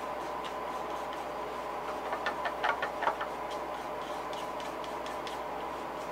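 Light, irregular clicks and taps, mostly in the first three seconds, as yellow acrylic paint is mixed by hand with a small tool. A steady electrical hum runs underneath.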